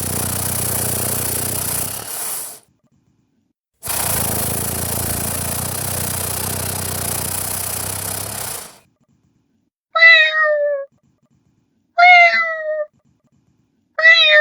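A person imitating a cat: two long rasping, hissing sounds, then from about ten seconds in three short meows, each falling in pitch, about two seconds apart.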